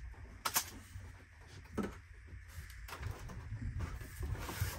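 Cardboard box being opened and its contents handled: rustling of the flaps and packing, with a few sharp knocks, over a low steady rumble. The rustle grows louder near the end.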